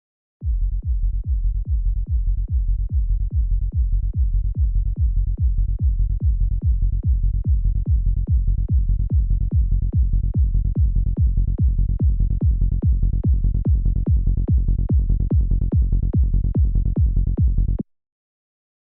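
Psytrance kick drum and synthesized bass looping in a steady, even pulse of about two and a half hits a second, heavy in the low end. The sound grows gradually brighter as a filter opens, and it cuts off suddenly near the end.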